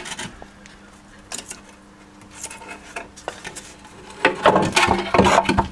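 Metal parts and tools clinking and knocking during engine disassembly: a few separate clinks, then a busier clatter of knocks in the last second and a half.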